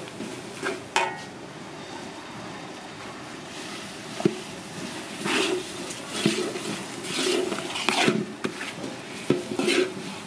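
Metal spatula and ladle scraping and stirring in a wok as duck eggs fry in sauce, over a faint steady sizzle. The scrapes come irregularly, a few early and more often in the second half.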